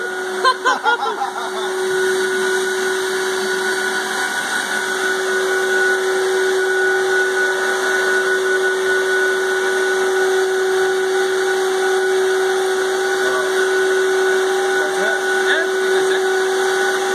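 Household vacuum cleaner running steadily with a high, even whine, drawing air through a vacuum-forming table to pull a heated plastic sheet down over a mould.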